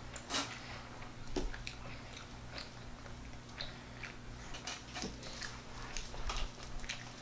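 Children chewing an octopus salad, with forks scraping and clicking on plates in short, scattered clicks, the loudest about half a second in. A faint steady hum lies underneath.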